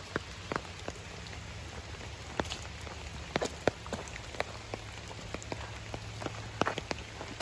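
Rain falling steadily, with big drops striking an umbrella overhead in irregular sharp ticks.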